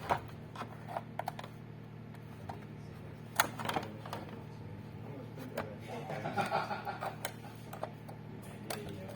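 Irregular light clicks and knocks, as of small hard objects being handled, over a steady low hum; the sharpest knock comes about three and a half seconds in.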